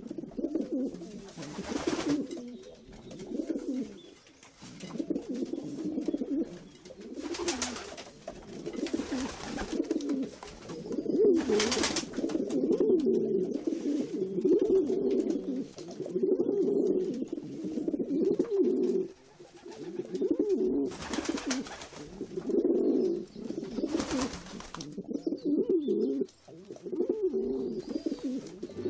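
A pigeon cooing over and over in low phrases, with a few short bursts of noise in between.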